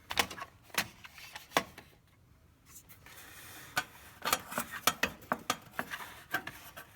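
Scattered sharp clicks, taps and rattles of hands working on plastic and metal parts around a minivan's electric condenser fan, with a brief lull about two seconds in and a quicker run of clicks near the end.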